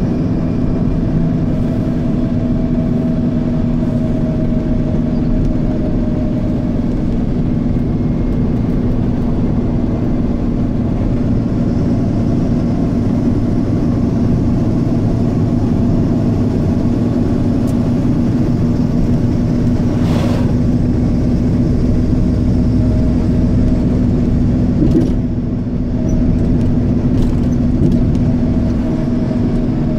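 A car driving at a steady speed: continuous engine hum and tyre noise with a constant low tone, briefly dipping in level about 25 seconds in.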